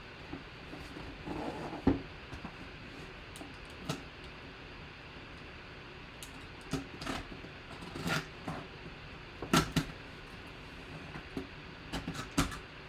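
A cardboard box being handled and its taped seam slit open with a small blade: scattered scrapes, taps and knocks against the cardboard, the sharpest about two seconds in and again past the middle.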